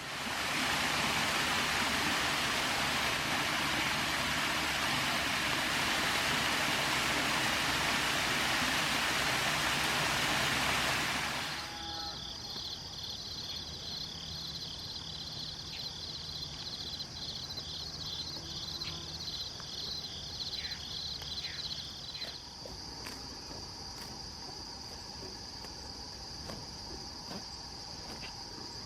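Steady rain hiss for about the first twelve seconds, cutting off abruptly. Then an insect chorus takes over: a steady high buzz, with a fast pulsing trill just below it that stops about two-thirds of the way through.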